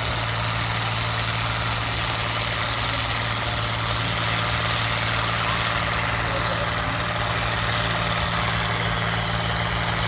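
Non-turbo John Deere farm tractor engine running under heavy load as it pulls a weight-transfer sled, a steady, even drone that grows slightly louder toward the end.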